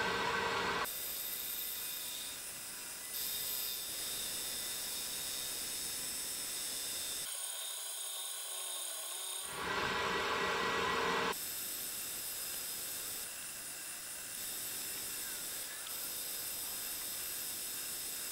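Metal lathe running under power while turning an SG iron stuffing box, the motor and gearing giving a steady whine over the hiss of the cut. The sound changes abruptly several times, as if cut between takes.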